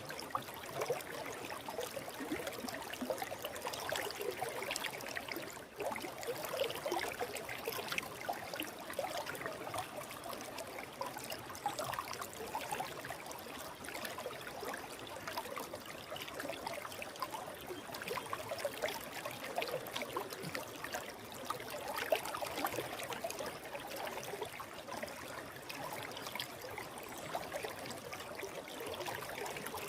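A small river flowing over rocks: steady babbling and splashing water.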